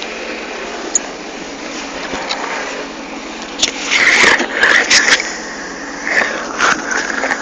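Sea-Doo GTX155 jet ski's four-stroke engine running steadily under a rush of wind and water noise. A few louder knocks and rustles come about four to five seconds in.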